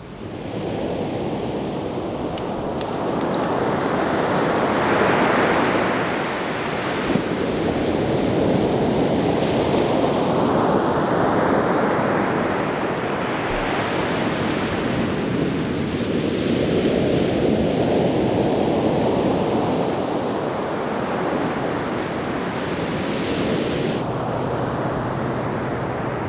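Ocean surf breaking on a sandy beach, a steady wash of water that swells and ebbs as each wave comes in, several seconds apart.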